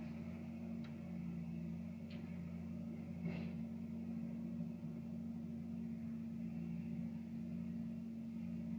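Diesel engines of a John Deere skid steer loader and an asphalt paver running in a steady low hum, muffled, with a few faint knocks in the first few seconds.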